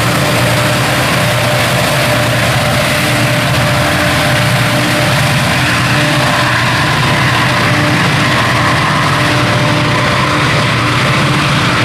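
Multi-unit consist of diesel-electric freight locomotives (GE ES43BBI and EMD SD40-2 type units) running as the train moves along: a loud, steady low engine drone with a few held tones above it.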